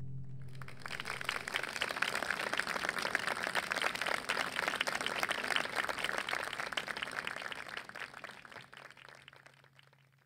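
A small audience clapping, starting as the last held cello-and-piano note dies away in the first second; the clapping thins and fades out near the end.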